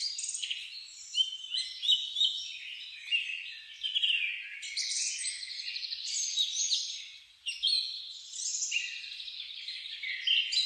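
Several songbirds singing at once, a dense chorus of overlapping chirps, trills and whistles.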